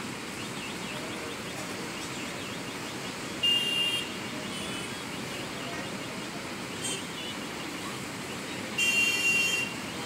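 Steady town traffic noise with a high-pitched vehicle horn honking twice: a short honk about three and a half seconds in and a longer one of about a second near the end, with a brief beep in between.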